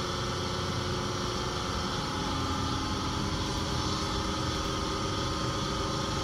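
Rain boot making machine running: a steady mechanical hum with several constant tones over a low rumble.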